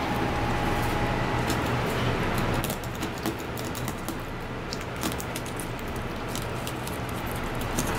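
Filleting knife clicking and scraping over a fish's backbone and rib bones as the fillet is cut free, many light irregular ticks. A steady background hum drops off about two and a half seconds in.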